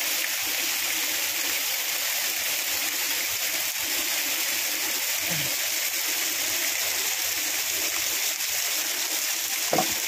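Waterfall's rushing water, a steady hiss that stays even throughout.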